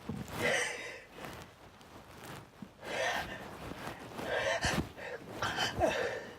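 A person with hay fever gasping and sneezing in a run of short, breathy bursts, about five in all, the loudest near the end.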